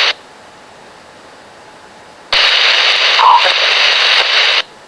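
RadioShack Pro-97 scanner picking up a keyed radio transmission with no clear words: a low hiss, then about two seconds in a loud burst of static that lasts about two seconds and cuts off suddenly as the transmission drops.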